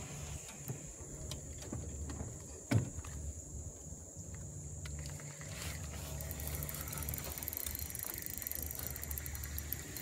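Fishing reel being cranked to bring in a hooked fish, a fast fine ticking that starts about halfway through, over a steady low hum. A single knock comes near the three-second mark.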